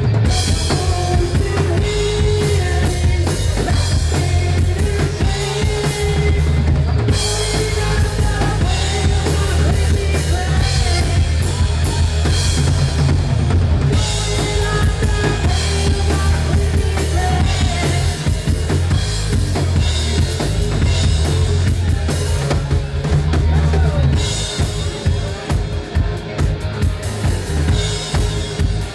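Live rock band playing loud, a drum kit with kick and snare driving the beat over electric guitar and bass guitar.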